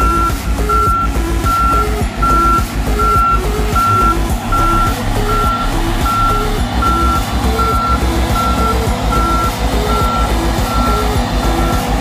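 Volvo motor grader's diesel engine running with its reversing alarm beeping steadily, a little more than one beep a second, the beeps fading near the end.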